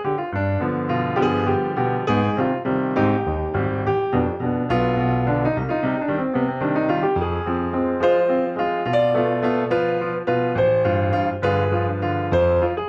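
Background piano music: a melody over sustained bass notes.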